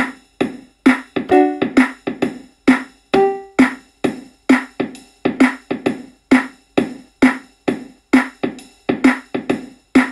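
Background music: a steady drum-machine beat at about two hits a second, with a few synth or keyboard notes in the first few seconds.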